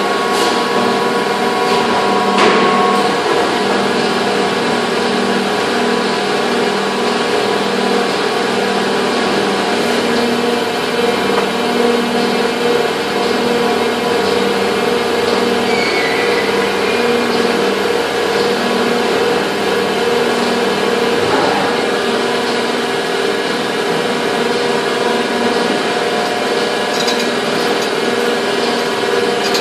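Factory moulding machinery running steadily: a loud machine drone with held tones and a low tone that pulses on and off, with an occasional knock.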